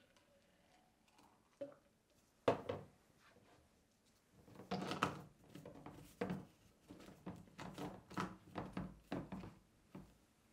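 A single knock of hard plastic on the counter about two seconds in, then the plastic blade lid of a Ninja single-serve blender cup screwed onto the cup by hand: a rapid run of plastic clicks and scrapes as the threads turn.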